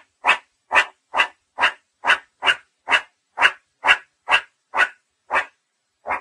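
Meerkat calling: a quick series of short, evenly spaced calls at about two a second, the last one after a slightly longer gap.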